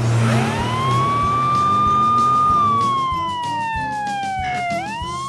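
Police siren wailing: the pitch rises over about a second, holds, falls slowly, then starts rising again near the end.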